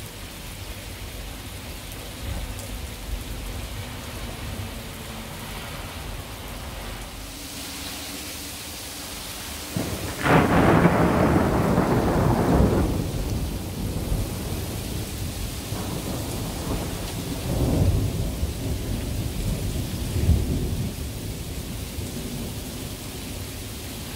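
Thunderstorm: rain falls with a steady hiss, then about ten seconds in a loud clap of thunder breaks and rolls on as rumbling for a few seconds, followed by two weaker rumbles later.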